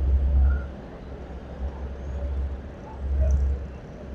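Road traffic going by, a low rumble that swells and fades several times.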